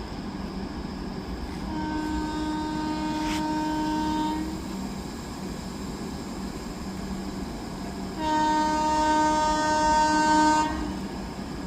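WAP-7 electric locomotive's horn sounding two long blasts, the second louder, over a steady train rumble.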